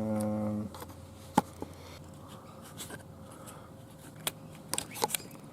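Small parts of a whipper snipper's trigger mechanism clicking and scraping as they are handled. There is one sharp click about a second and a half in, and a quick cluster of clicks near the end.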